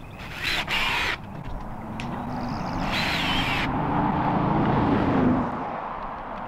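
A vehicle passing on a road, its hum building to a peak about five seconds in and then fading. Two short, high-pitched whirring bursts come about half a second in and about three seconds in.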